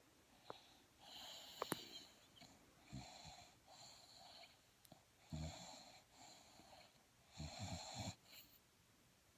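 Soft, wheezy snoring from a sleeper: a slow run of about five snoring breaths, one every one and a half to two seconds, with a few faint clicks between them.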